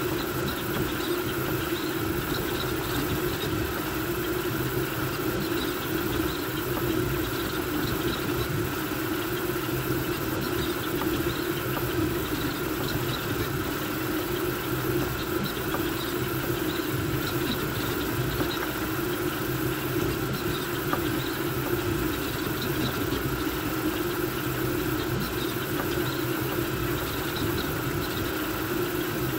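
Voron V2.4 3D printer printing at high speed: a steady whir of its toolhead cooling fans and blower, with the stepper motors' whine as the toolhead moves rapidly back and forth.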